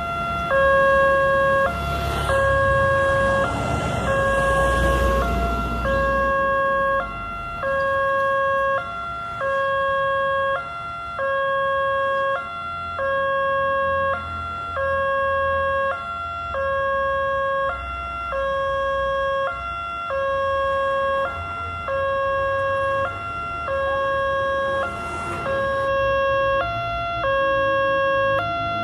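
Railroad crossing warning siren sounding from the crossing's horn loudspeaker as the barrier closes: a steady two-tone hi-lo wail, switching between its two notes about once a second. The title calls it a siren error. A low rumble runs under the first few seconds.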